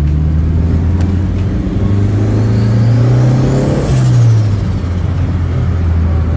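Turbocharged pickup engine running under way. It pulls with rising pitch for a couple of seconds, then drops off abruptly just after four seconds in, with a hiss that swells and fades around that moment.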